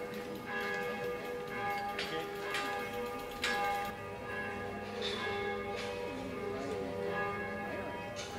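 Church bells pealing: several bells struck in irregular turn, their tones ringing on and overlapping.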